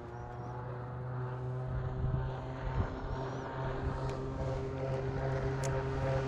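Distant engine droning steadily, slowly growing louder as it approaches.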